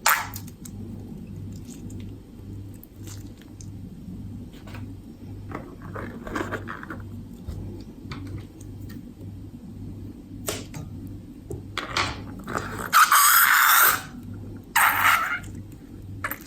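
Small clicks, taps and squishes from handling slime-making materials, over a steady low hum. About thirteen seconds in comes a louder rushing, hissing noise lasting about a second, then a shorter one.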